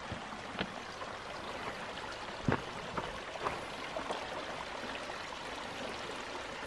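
Small creek trickling over rocks in a steady hiss of water, broken by a few light knocks, the loudest about two and a half seconds in.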